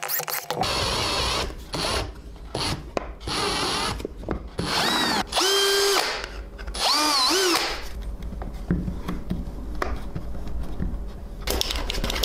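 Ryobi cordless drill-driver running in a string of short bursts as it drives the bolts into a 3D-printed pump cover, its motor whine rising and falling with each squeeze of the trigger. The bursts stop after about eight seconds.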